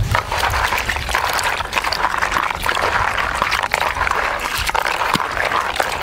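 Hands swishing and rubbing a batch of small clams in a bucket of muddy seawater: water sloshing, with many small clicks through it as the shells knock together.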